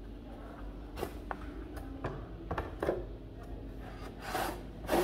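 Scattered light clicks and knocks of hands handling a wooden-cased wall clock from behind, with a brief rub of cloth against the microphone near the end.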